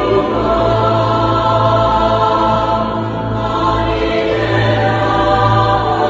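Music with a choir singing long held chords.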